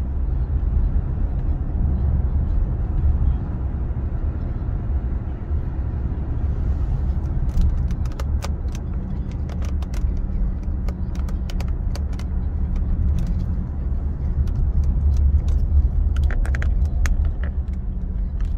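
Car cabin noise while driving slowly: a steady low rumble of engine and tyres. A scatter of short sharp clicks sets in about halfway through.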